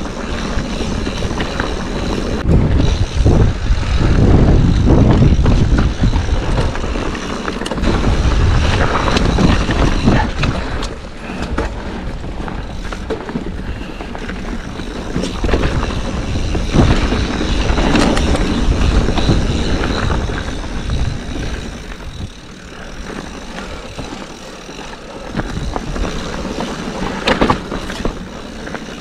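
Ride noise from a Yeti mountain bike descending rocky singletrack: wind rushing over the microphone and tyres running over dirt and rock, with frequent clattering knocks from the bike over rocks. The noise rises and falls in level, and is loudest in the first third.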